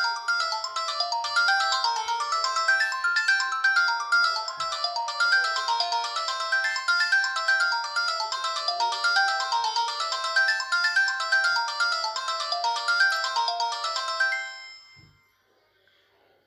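Samsung SGH-ZV10 mobile phone playing a polyphonic ringtone: a quick melody of short, separate notes. It fades out about fourteen seconds in, and another tone starts right at the end.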